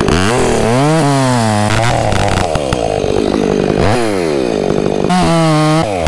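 Two-stroke Stihl chainsaw revving up and down several times as it cuts through the trunk of a felled dead tree. It holds high revs briefly near the end before dropping back.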